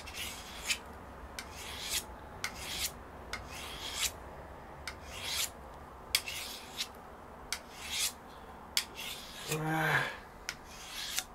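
Knife blade of a Pirat 'Starshina' fixed-blade knife drawn in repeated rasping strokes across a sharpening stone, about one to two strokes a second, each starting with a faint click. The steel is being worked to put an edge on a poorly sharpened factory blade.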